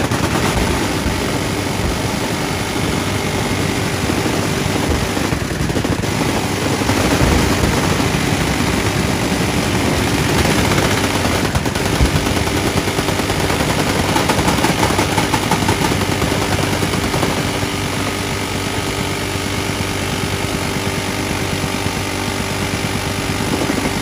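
Many machine guns firing at once along a range line: a continuous, dense stream of overlapping full-auto bursts and single shots.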